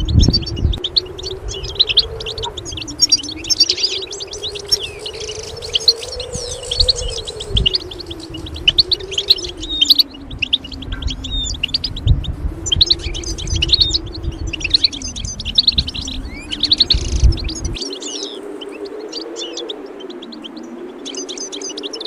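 European goldfinch song: rapid, tinkling twittering chirps that run on almost without pause. Under it runs a low hum that slowly wavers up and down in pitch, and low thumps stop about 18 seconds in.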